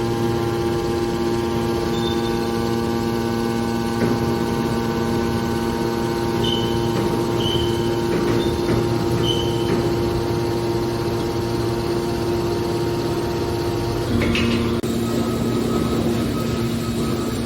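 Hydraulic ferrous scrap baler running with a steady machine hum made of several fixed tones. About fourteen seconds in, the tones shift and there is a knock, as the machine's load or stage changes.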